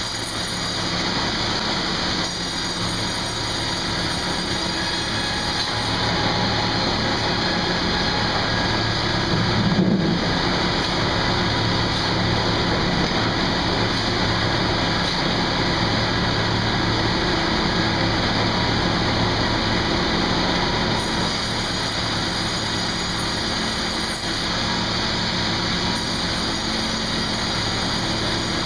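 Sawmill machinery running steadily: a continuous dense noise over a low machine hum, briefly louder about ten seconds in.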